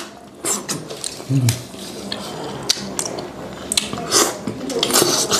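Close-up eating sounds of raw peeled shrimp dipped in sauce: wet chewing, lip smacks and slurps in short bursts, with a brief low hum about one and a half seconds in.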